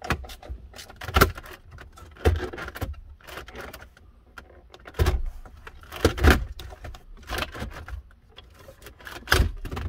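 Plastic dash trim on a center stack being worked loose and pulled off by hand: irregular clicks, knocks and rattles, with a handful of louder sharp snaps and knocks spread through.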